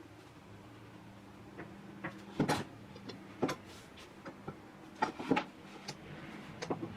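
Irregular sharp clicks and knocks, a dozen or so, the loudest about two and a half and five seconds in, over a faint steady low hum.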